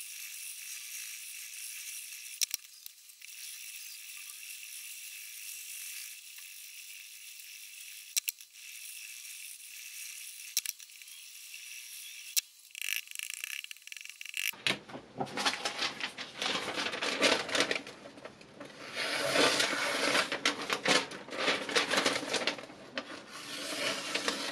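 Diamond sharpening stone, 800 grit, rubbed back and forth along a steel kitchen-knife blade: repeated scraping strokes of abrasive on metal. It is thin and faint for the first half or so, with a few sharp clicks, then about 15 seconds in becomes fuller and louder, with dense strokes.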